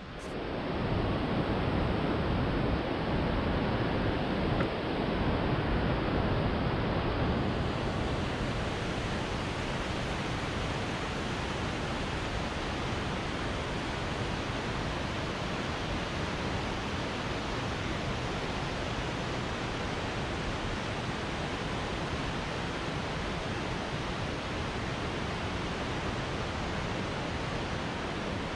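Waterfall and whitewater in the canyon below rushing steadily, a little louder over the first several seconds.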